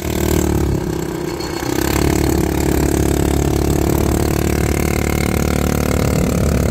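Quad bike (ATV) engine running, then getting louder about two seconds in as the bike pulls away over sand, and holding a steady drone.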